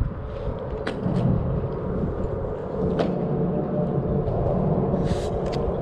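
Steady low rumble, with a few sharp clicks about one and three seconds in and a short hiss near the end.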